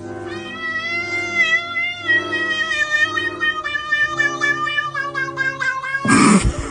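A cat's long, drawn-out yowl lasting about six seconds, its pitch wavering and stepping down toward the end. It is cut off by a brief loud rushing burst.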